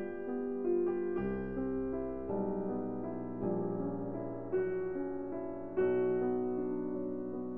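Background piano music: gentle sustained chords, a new chord struck about once a second.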